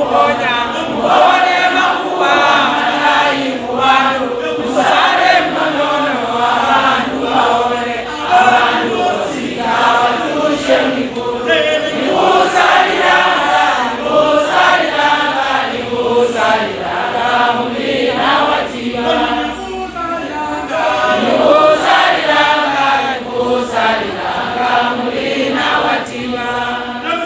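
A choir of voices singing together, continuing through the whole stretch without a break.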